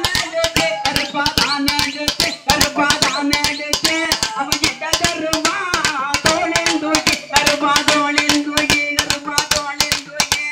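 Loud music with fast, dense drumming and sharp cracking strokes, under a held melody line that wavers briefly in the middle.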